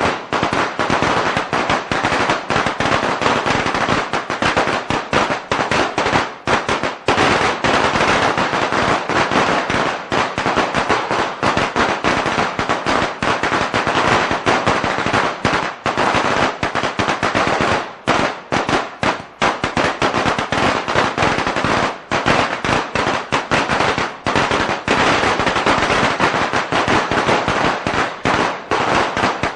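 A string of Chinese firecrackers going off in a dense, continuous rapid crackle of bangs, with a few brief lulls, the longest about two-thirds of the way through.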